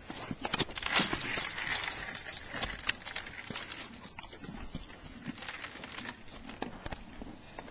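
An animal at its breakfast feed: scattered clicks and knocks, with a brief rustle about a second in.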